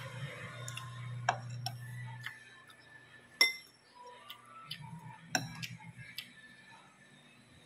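Metal forks and a spoon clinking and scraping against ceramic noodle bowls while eating: a scatter of separate sharp clinks with a short ring, the loudest about three and a half seconds in.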